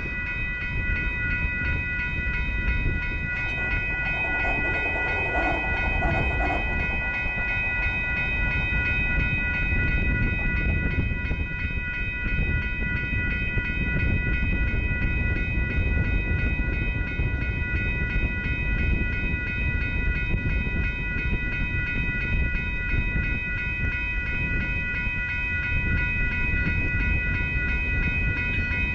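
Union Pacific intermodal freight train led by ES44AC and SD70M diesel locomotives approaching and passing, a steady low rumble of engines and rolling cars. A steady high-pitched ringing sits over it, and a brief lower pitched sound comes about four seconds in.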